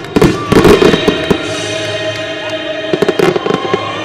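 Fireworks launched from the stage, going off in rapid clusters of sharp cracks and pops in the first second or so and again about three seconds in, over an orchestra playing held notes.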